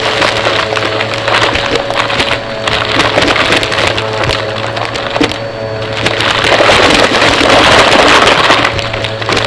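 Vacuum cleaner running with a steady motor hum and whine, sucking up debris that crackles and rattles through it. The airflow rush swells louder for a couple of seconds about two-thirds of the way through.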